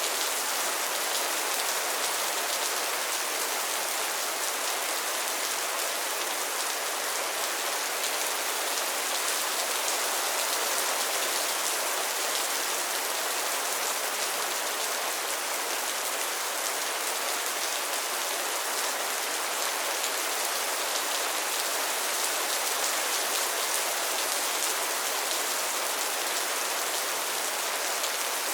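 Steady rain falling on pond water and floating lily pads, a dense even hiss of many small drops pattering.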